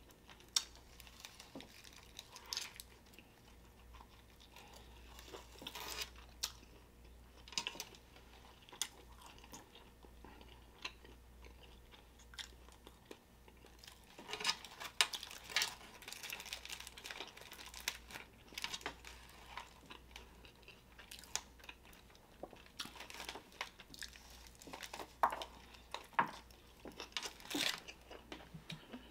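Close-miked chewing of a large burrito: soft wet mouth sounds and small clicks in irregular runs, busiest around the middle and near the end, with the occasional crinkle of its aluminium foil wrapper.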